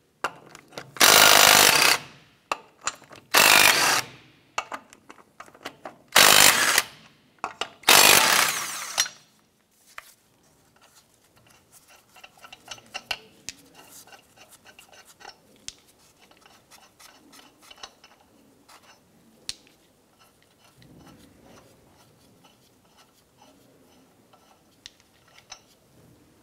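Cordless impact wrench with a 19 mm socket hammering lug nuts loose, in four bursts of about a second each within the first nine seconds. Then quieter scattered clicks and clinks as the loosened lug nuts are spun off the wheel studs by hand.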